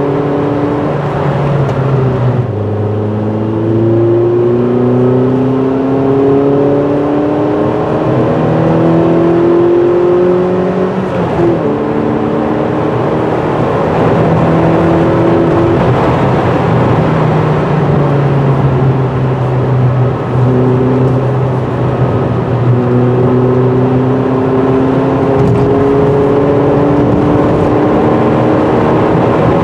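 2006 Ford Fiesta ST150's 2.0-litre four-cylinder engine, with a cone air filter and resonator-delete exhaust, heard from inside the cabin as the car pulls through the gears. The pitch climbs and drops back at each upshift, about two seconds in and again around eleven seconds, and holds steady while cruising in between.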